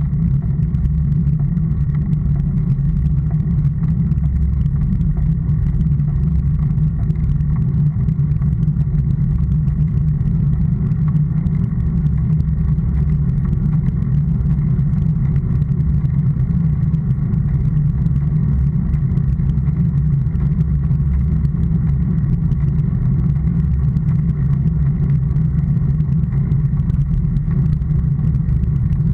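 Steady low rumble of wind and road vibration picked up by a camera mounted on a road bicycle riding on asphalt.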